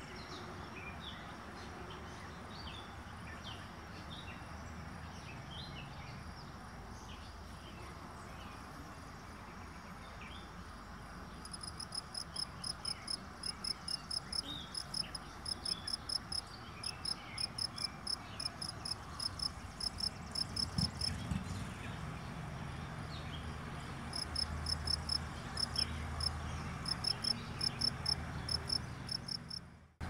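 An insect chirping in a steady run of short, high pulses, about three a second. It starts about halfway through, pauses briefly, resumes, and then cuts off abruptly at the end.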